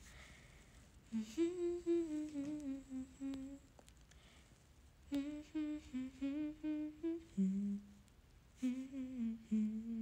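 A young woman humming a song melody with her lips closed, in three short phrases with brief pauses between them.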